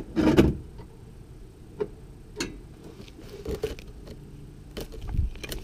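Ratchet and half-inch swivel straining on a seized transmission fill plug under a Nissan 240SX: scattered metallic clicks and knocks as the wrench is pulled on and reset, the plug not yet breaking loose.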